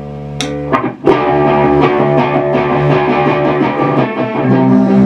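Heavy metal band rehearsing: a held electric guitar chord with a few sharp taps, then about a second in the full band comes in loud and keeps playing.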